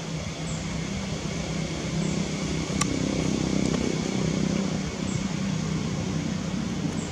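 Steady low mechanical hum of a running motor, with faint short high chirps about every second and a half and one sharp click about three seconds in.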